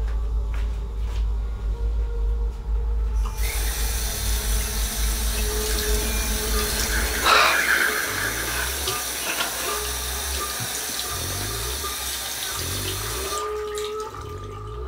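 Bathroom sink tap running, turned on about three seconds in and shut off near the end, with a louder splash of water about seven seconds in.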